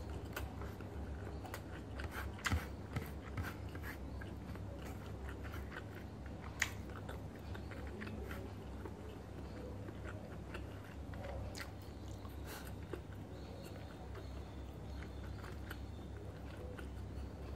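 A person chewing food close to the microphone, with scattered sharp crunches and clicks, the loudest a few seconds in. A low steady hum runs underneath.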